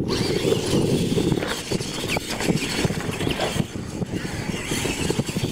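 Electric R/C monster trucks' motors and gearboxes whining as they drive on the dirt track, the pitch wavering as the throttle changes, over a heavy rumble of wind on the microphone.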